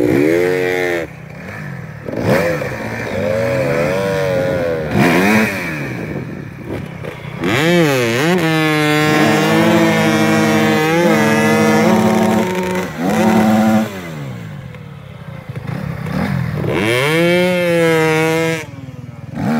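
Off-road motorcycle or quad engine revved hard again and again, the pitch climbing and dropping, held at high revs for several seconds in the middle, as the machine works through mud.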